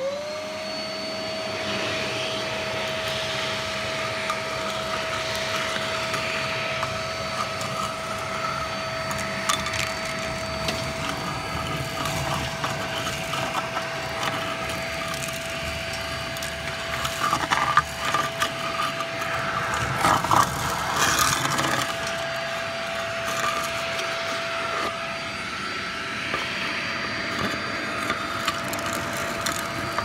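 Workzone 1200-watt ash and coarse-dirt vacuum switched on, its motor winding up within a moment to a steady whine over the rush of suction. Ash and debris crackle and rattle as they are drawn into the metal nozzle and hose, most heavily about two-thirds of the way through.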